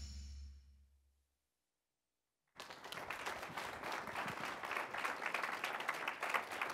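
The closing music of a promotional video fades out within the first second, then a short stretch of dead silence; about two and a half seconds in, audience applause starts suddenly and continues steadily.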